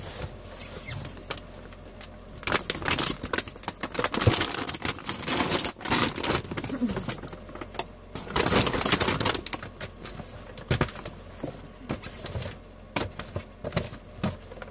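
A plastic cat food bag crinkling while sawdust-like horse-bedding cat litter rustles and pours between the bag and a plastic litter pan. It comes as irregular crackly bursts, heaviest a few seconds in and again past the middle.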